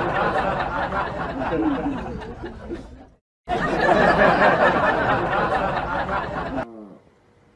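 A dense mix of voices and laughter in two stretches, broken by a sudden cut to silence about three seconds in.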